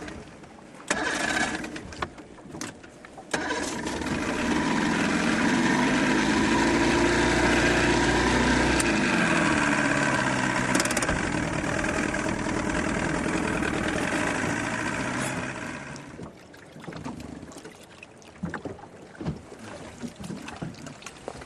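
Boat motor run up under throttle for about twelve seconds, its pitch dipping partway through, then easing off and fading out, with a few knocks before it starts.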